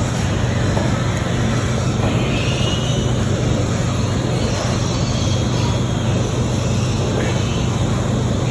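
Steady, loud mechanical droning, a continuous rushing noise with a low hum underneath.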